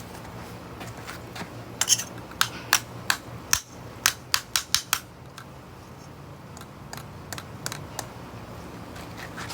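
A quick run of about a dozen sharp hard knocks and clicks as a light bulb is struck without breaking, followed by a few scattered fainter ticks.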